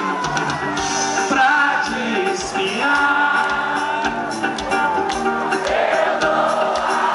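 Live axé band music: singing over a steady drum beat, with crowd voices, heard loud and steady.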